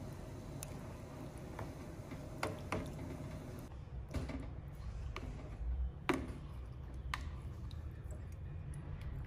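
Blanched pork fat being dropped into a basin of cold water and handled with metal tongs: wet splashes and drips with a few sharp clicks, the loudest about six seconds in, over a steady low hum.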